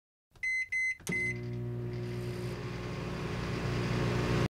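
Microwave oven keypad beeping three times, then the oven starting and running with a steady hum that grows slightly louder and stops abruptly.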